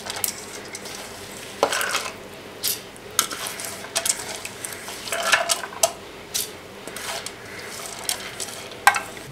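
Soaked rice and chana dal scraped by hand off a steel plate into a steel mixer-grinder jar: irregular clinks and taps of steel on steel as the wet grains slide and drop in.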